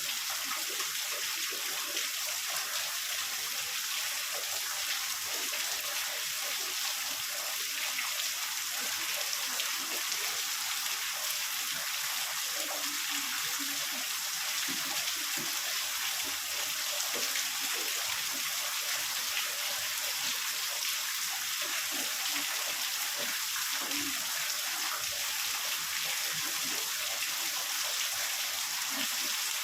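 Heavy rain falling steadily: a continuous, even hiss with scattered small spatters and no thunder.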